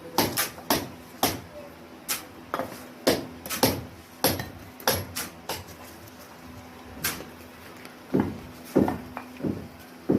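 Bricklaying work: an irregular run of sharp taps and knocks, about two a second, as bricks and masonry tools strike one another.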